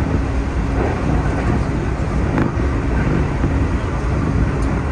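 Keihan 3000 series electric train running at speed: a steady rumble of wheels on rail with a faint steady hum, and a single click about halfway through.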